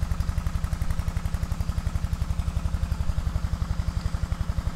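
Yanmar walking tractor's single-cylinder diesel engine running steadily with a fast, even chug, driving a long-tail pipe pump that lifts water out of a canal.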